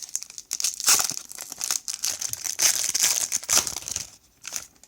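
A trading-card pack's wrapper being torn open and crinkled by hand, a dense run of crackling rustles that stops about four seconds in.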